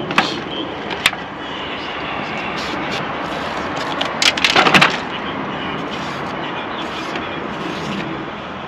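Chef's knife cutting bell peppers, with two sharp clicks in the first second and a quick run of crackles and knocks about four seconds in as pepper pieces are pressed into an aluminium foil pan. A steady background hiss runs underneath.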